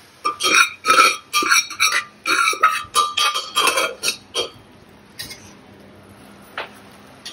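Steel spoon scraping and knocking against the inside of an aluminium pressure cooker pot while cooked potatoes are scooped out into a pan. There are rapid ringing metallic clinks, about two a second, for four seconds or so, then a few softer single taps.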